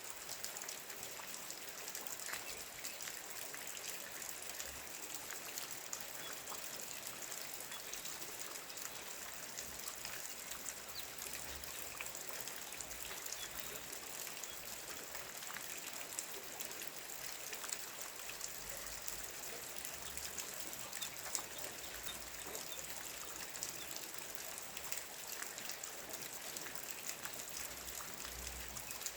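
Steady rain falling: a constant hiss with many separate drops ticking throughout.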